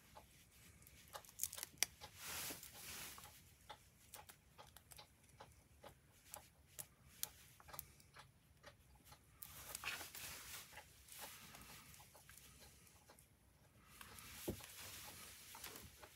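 Faint handling sounds: small irregular clicks, rustles and scratchy tearing as helmet intercom parts are peeled free and pressed into place inside a motorcycle helmet, with a slightly louder scraping stretch about ten seconds in.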